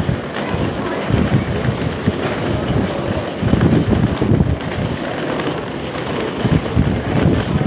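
Wind buffeting the phone's microphone in irregular low rumbling gusts over a steady background rush of noise.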